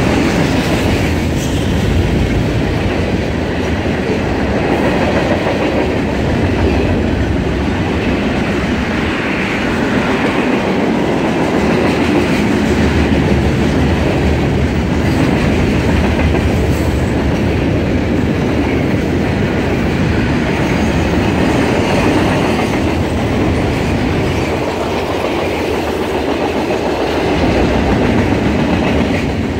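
Mixed freight train's cars rolling past at a steady speed, their steel wheels clicking over the rail joints.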